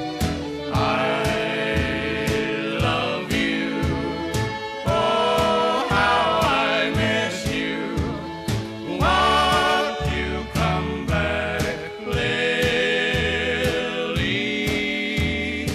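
Background music: a song with a steady beat and a wavering melody line.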